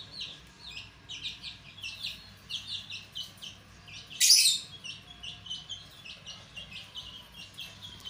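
Young chicks peeping in many short, quick chirps, with one louder, shrill bird call about four seconds in.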